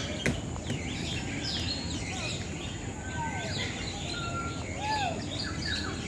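Small birds chirping and whistling: many short, high chirps overlapping with a few slurred whistles, over steady low background noise.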